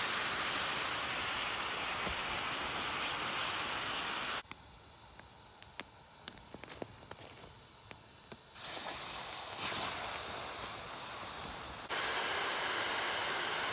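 Fire-heated rocks hissing and sizzling in water in a bark container: stone boiling, the hot stones bringing the water toward a boil. Near the middle the hiss drops away to a quieter stretch with a few sharp clicks, then starts up again with more hot rock in the water.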